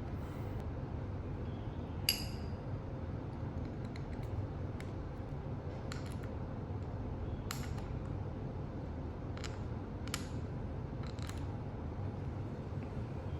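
Scattered small metallic clicks and clinks, about six, the loudest about two seconds in with a brief ring, over a steady low hum.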